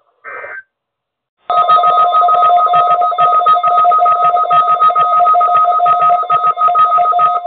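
Weather radio warning alarm tone sounding loudly, starting about a second and a half in: a harsh, continuous two-pitch alarm that signals the start of the weekly alarm test.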